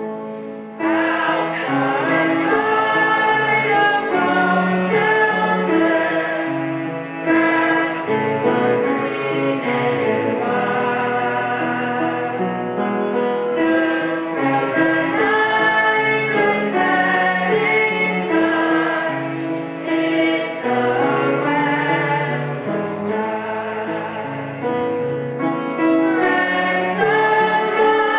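A small choir of young voices singing in unison, accompanied by a bowed cello; the voices come in about a second in.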